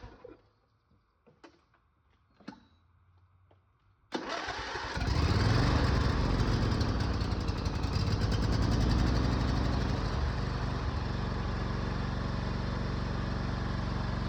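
Riding lawn mower engine, now on a new battery, after a few faint clicks, cranks briefly about four seconds in and starts, then runs steadily.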